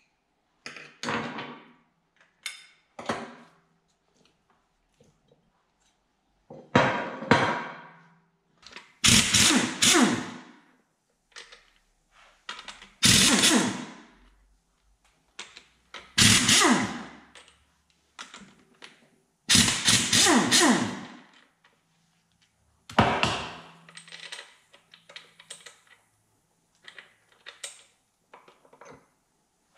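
Pneumatic impact wrench hammering in about six short bursts, each a second or so long, loosening bolts inside a Corvette differential housing. A couple of metal clinks come first, from hand tools on the axle clip.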